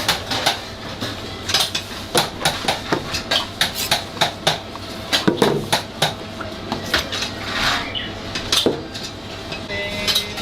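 Irregular clinking and clattering of dishes, pans and utensils being handled, several sharp knocks a second over a steady low hum.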